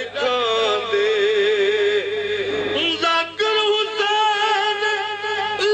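Singing: one voice holds long, wavering high notes, with a short break about three seconds in.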